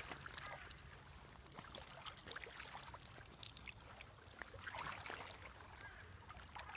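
Faint trickling and lapping of river water, with scattered small ticks and two brief louder patches of splashing, one near the start and one about five seconds in.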